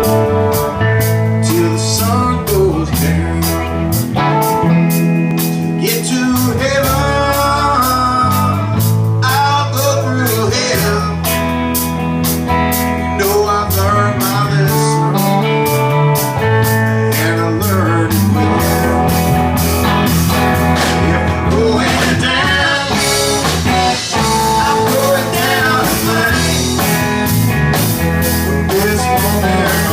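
Live blues-rock band jamming: a bending electric guitar lead over bass and drums, with a steady cymbal beat.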